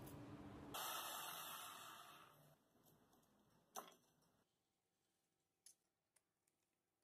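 Near silence: faint room tone, with a brief hiss that fades out, a single sharp click in the middle and a couple of tiny ticks near the end.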